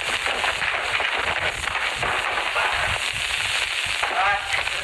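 Dense crackle and hiss of a worn old film soundtrack. A brief wavering cry is heard near the end.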